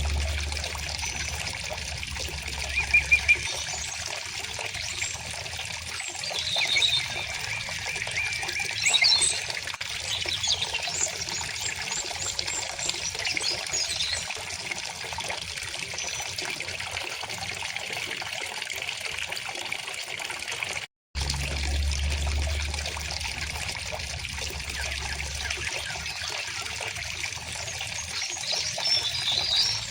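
Steady trickling flow of a shallow river or stream, with birds chirping over it in short calls, a quick run of three chirps about three seconds in. The sound drops out for a split second about two-thirds of the way through.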